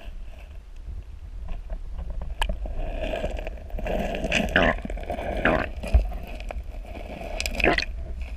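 Muffled underwater sound of a shallow river, a steady low rumble with rushing and gurgling water, picked up by a submerged camera while a hooked smallmouth bass swims close by. Several sharp knocks and scrapes come through the rumble.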